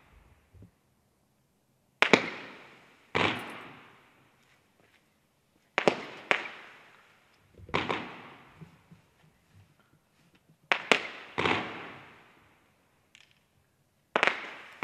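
Profi Line 8.10 20-shot fireworks battery firing golden horse-tail shells, a quiet-effect cake. There are about eight sharp reports, several in pairs, and each one trails off in about a second of fading hiss.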